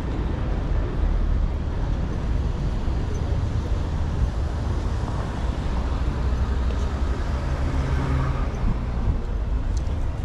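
Steady city street noise: a low rumble of road traffic.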